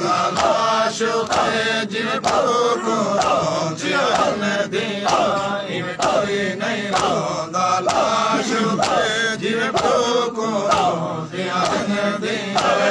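Men chanting a mourning noha (lament) in unison behind a lead reciter, the voices rising and falling in a repeated refrain. Sharp slaps of chest-beating (matam) keep a steady beat under the chant.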